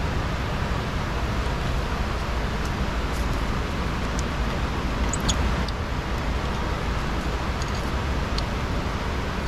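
Steady rushing background noise, with a few faint light metallic clicks as bolts are started by hand into the CV axle's inner flange, about four and five seconds in and again near the end.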